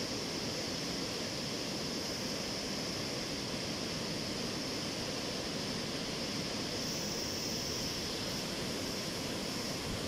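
Brown floodwater of a forest stream in flash flood rushing over rocky rapids: a steady, unbroken rush of churning water.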